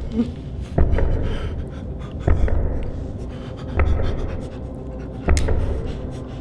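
Slow, regular low thumps about every one and a half seconds, each with a sharp click on top, over breathing.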